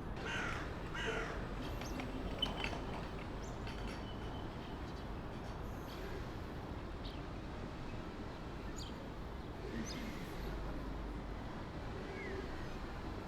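A crow cawing twice about a second apart near the start, with a few faint bird chirps later, over steady outdoor background hum.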